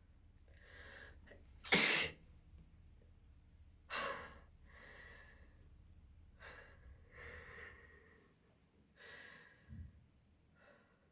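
A person sneezes loudly about two seconds in, a forced sneeze, then sneezes again more weakly about two seconds later. Several soft breaths and sniffs follow, with a short low thump near the end.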